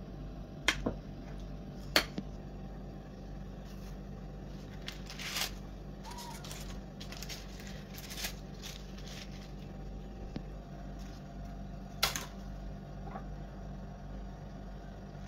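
A metal spoon clicks sharply against a ceramic plate twice, then parchment paper rustles and crackles as it is pulled out of baked phyllo pastry cones on a metal tray. There is another sharp click near the end, all over a steady low hum.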